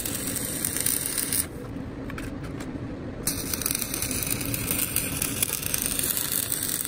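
Electric welding arc crackling and sputtering steadily as a bead is laid on a steel part. The hiss cuts out for about two seconds, a little over a second in, then resumes.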